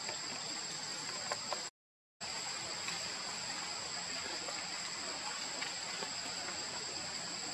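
Steady forest ambience: a constant high-pitched insect drone over an even hiss, broken by a sudden half-second dropout to silence about two seconds in.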